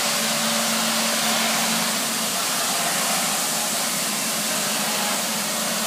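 Nilfisk BA531D scrubber dryer running, with the steady whirring rush of its suction motor. A faint low hum under it drops out about two seconds in.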